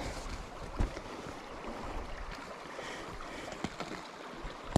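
Shallow river current running over rocks, a steady rushing, with a couple of brief knocks about a second in and near the end.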